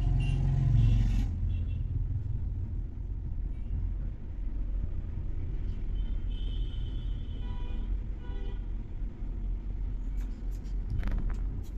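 A steady low rumble throughout, with cloth rustling and light brushing on the table near the end as fabric pieces are smoothed flat by hand.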